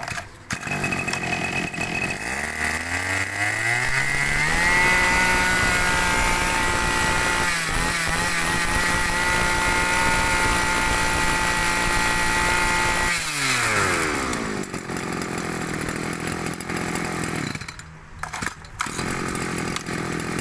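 Tanaka 21cc two-stroke brush-cutter engine running: it idles, is throttled up smoothly to high revs, holds there steadily for about eight seconds, then drops back to idle.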